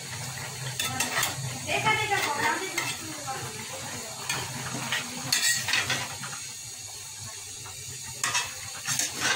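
A spatula scraping and knocking against a metal karai as a curry of beef tripe and Malabar spinach is stirred, over a steady sizzle from the pan. The strokes come in clusters about a second in, around the middle and near the end, with a quieter stretch between.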